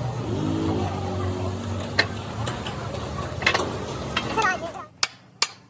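Workshop sounds: a steady low machine hum with sharp clicks and taps of tools, and a brief voice; the hum cuts off near the end.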